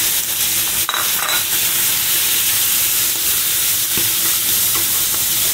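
Baby squid sizzling steadily as they sauté in hot oil in a frying pan, with a brief knock of the pan or utensil about a second in.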